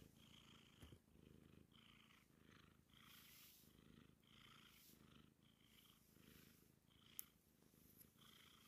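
Bombay cat purring steadily and faintly, swelling and fading about once a second. A single sharp click about seven seconds in.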